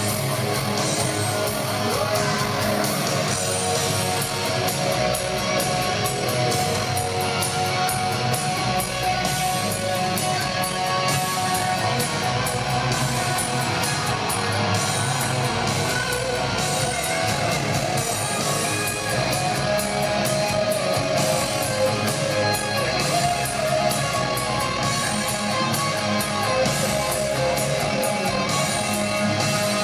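Live hard-rock band playing an instrumental passage: electric guitars over a steady drum beat.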